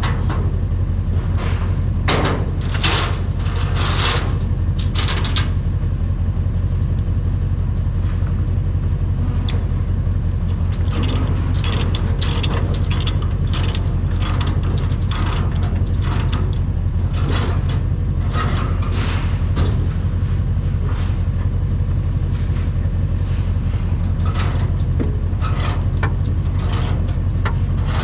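A heavy diesel engine running steadily, with frequent sharp metallic clanks and rattles over it, typical of a skid steer or tow truck being worked during loading.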